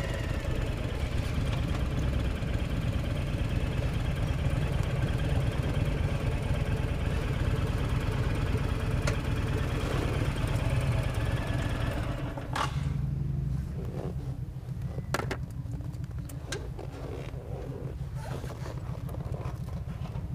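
V-twin cruiser motorcycle engine running at low speed, heard from on the bike as it creeps along. About twelve seconds in the sound drops to a quieter, softer running, and a few sharp clicks come through.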